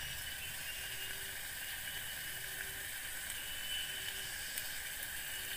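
Steady hiss of food sizzling and simmering in a metal pot over a wood fire.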